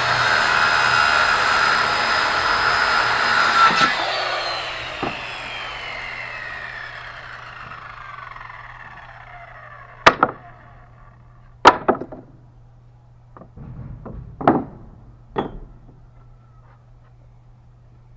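Electric saw running at full speed, then released, its blade winding down with a falling whine over several seconds. Several sharp separate knocks follow.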